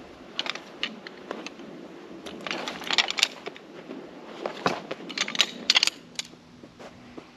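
Irregular crunches and sharp clicks of camping gear being handled, bunched in two clusters, about three seconds in and again around five seconds in.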